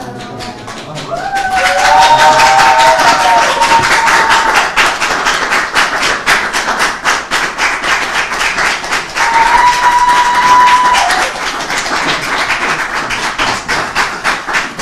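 A crowd applauding with fast, steady, rhythmic clapping as the newly elected mayor arrives, with a couple of long held cheers shortly after it builds up and again midway.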